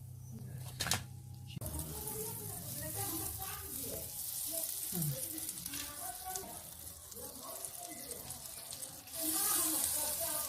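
Food sizzling in a frying pan as a steady low hiss, with faint voices in the background. The sizzle grows louder about nine seconds in.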